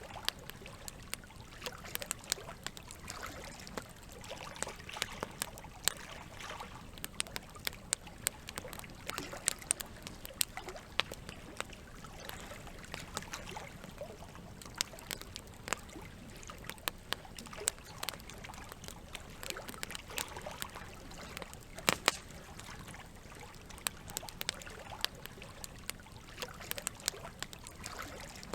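Campfire crackling, with frequent sharp pops and snaps scattered irregularly, one especially loud pop about two-thirds of the way through, over a steady trickle of running water.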